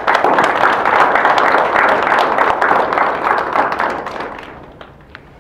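Audience applauding, starting suddenly and dying away about four seconds in.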